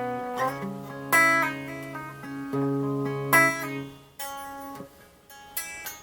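Clean guitar playing chords, with two strong strums about a second in and just past three seconds. Low notes are held beneath, and the notes ring out and fade toward the end.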